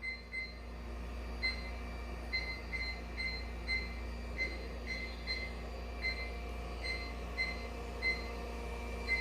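A robot floor cleaner beeping: a string of short, high electronic beeps at uneven spacing, about one every half second, over a steady low hum.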